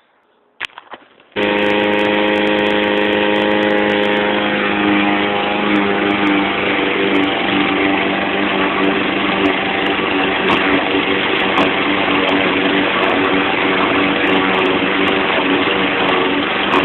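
YardMan push mower's 159cc PowerMore single-cylinder engine being pull-started: a brief click of the pull, then the engine catches about a second in and runs steadily and loudly, turning rougher a few seconds later.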